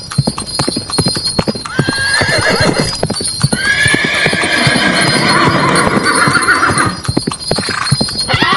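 Horse hooves clip-clopping at a steady pace, the sound of a horse-drawn andong carriage, with a horse whinnying. There is a short neigh about two seconds in and a long wavering whinny from about three and a half to eight seconds, and another begins right at the end.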